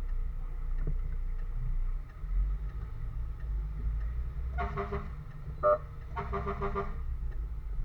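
Fire engine's motor running with a steady low rumble, and three vehicle horn blasts about five to seven seconds in: a half-second blast, a short sharp toot that is the loudest sound, then a longer blast of about three-quarters of a second.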